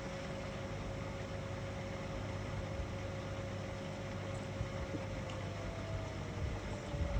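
Whirlpool FSCR 10425 front-loading washing machine running, with a steady motor whine over a low rumble. About five seconds in, the whine starts to fall in pitch as the motor and drum slow down.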